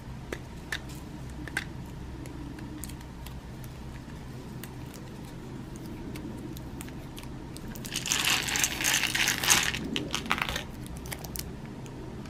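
Adhesive seal tape being peeled from around the lid of a metal pellet tin: a few small ticks at first, then loud crackling for about two seconds, two thirds of the way in, as the strip pulls away.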